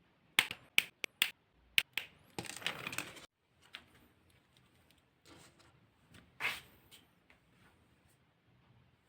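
Plastic toy and its packaging being handled: about five sharp plastic clicks in the first two seconds, then a second of crinkling rustle, and a few softer scrapes and rustles later on.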